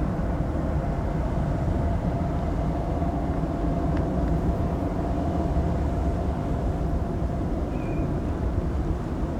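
Airbus A319 jet engines during takeoff: a steady low rumble with a faint steady whine above it. A short high chirp comes near the end.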